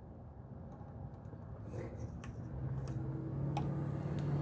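Faint clicks of a tool being worked against an oil filter housing under a car. From about two and a half seconds in, a low steady hum joins them.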